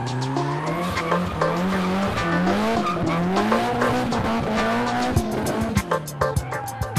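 A drifting car's engine revving up and down as it spins its rear tyres in tight donuts, with tyres squealing on the tarmac.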